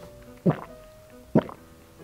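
Two quick gulping plops about a second apart as someone drinks from a bottle through a straw, over faint background music.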